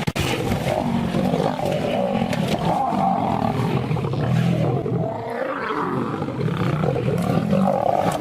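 Lions in a fight, roaring continuously and loudly, with a brief lull about five seconds in.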